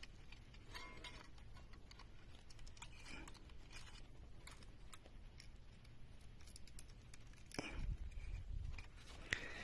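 Faint handling noises of stripped charger wires being attached to a plastic remote control: scattered light clicks and rustles, with a louder knock and rub about eight seconds in.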